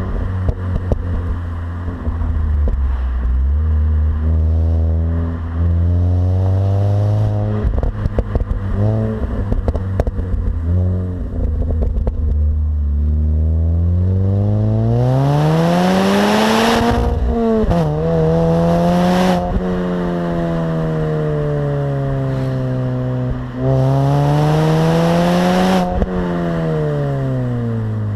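Mini Cooper S R53's supercharged 1.6-litre four-cylinder engine on its stock exhaust, running low and steady, then revving up hard in the middle with a sudden drop and a second short climb before falling away, and one more rise and fall near the end. A stretch of rattling and crackling comes before the first big climb.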